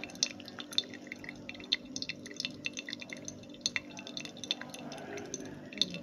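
Hot water pouring in a thin stream from a gooseneck kettle onto the coffee bed in a V60 pour-over dripper, with coffee dripping into the glass server below as irregular small plinks. This is a pulse pour during the brew.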